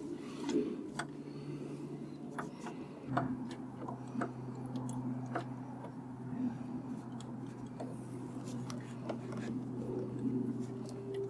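Light, irregular clicking of a ratchet and spark plug socket as a new spark plug is threaded and tightened into the engine, over a steady low hum.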